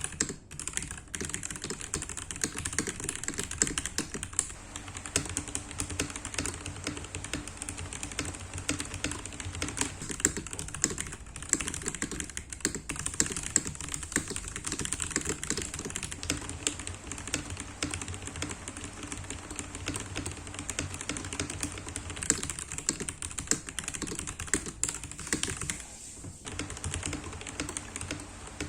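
Continuous typing on a Vortexseries VX8 mechanical keyboard with its stock Gateron Yellow linear switches, lubed with Krytox 205 and 105, with switch pads and 2 mm EVA foam added to the case: a sound test of the modded board. The keystrokes run quickly and steadily, with a few brief pauses.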